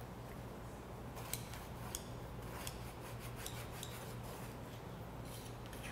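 Small hand tool scraping along the edge of a leather strap in short, soft strokes with scattered light ticks, smoothing the edge so it is even.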